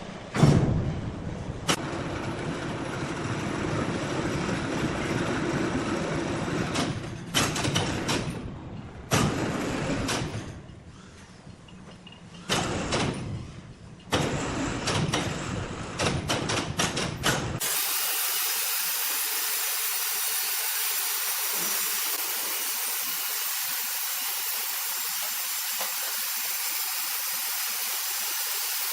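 Sawmill machinery running, with repeated knocks and clatters of wood being handled and cut. About two-thirds of the way in it switches abruptly to a steady, even hiss.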